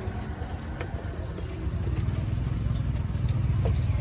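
A motor engine running, a steady low rumble that grows louder about halfway through, with one light click about a second in.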